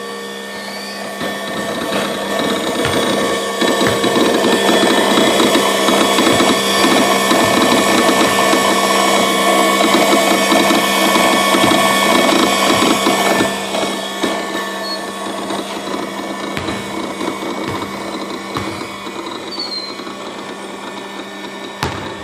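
Genie AWP-30S aerial work platform clicking repeatedly and irregularly over a steady mechanical hum, louder for about ten seconds in the middle. The clicking sounds like a solenoid clicking in and out, a fault still there after one repair.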